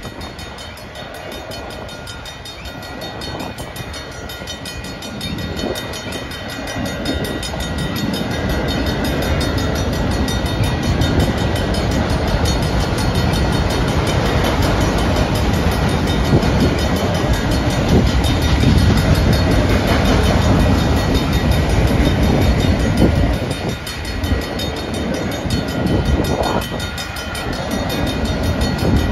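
Freight train of autorack cars rolling past a grade crossing, steel wheels running on the rails with a continuous rumble and rattle. It grows louder over the first ten seconds, then holds, dipping briefly twice near the end.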